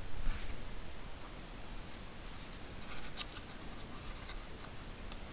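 Faint scratching and a few light clicks as a threaded metal stud is turned in the fingers and threadlocker is dabbed onto its threads from a plastic bottle.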